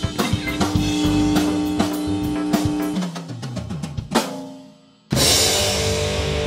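Rock intro music on drum kit: a driving beat with bass drum and snare, then a quick fill, dropping out for a moment just before five seconds. A loud electric guitar chord then comes in and rings on.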